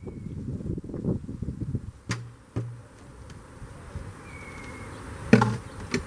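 Honeybees buzzing around an opened hive, with wind on the microphone. A few wooden knocks come from the hive box being handled, the loudest about five seconds in as the box is set down.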